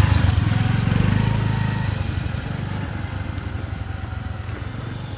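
A small engine running with a rapid low putter, loudest at the start and gradually fading.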